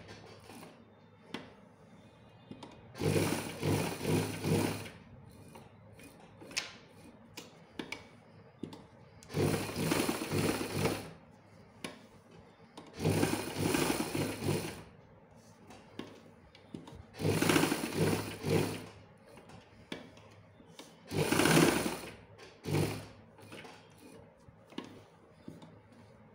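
Domestic sewing machine stitching a fabric-covered buckram strip onto a sleeve in about five short runs of a second or two each, with pauses between them. The stop-start pattern fits sewing a zigzag, hill-shaped seam along the edge of the buckram.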